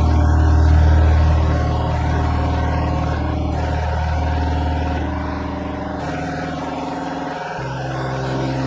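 Background music with held, deep bass notes and chords that shift every few seconds.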